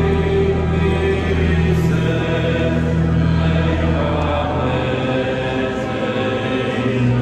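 Church choir singing over organ accompaniment in long held chords, the harmony shifting about four and a half seconds in.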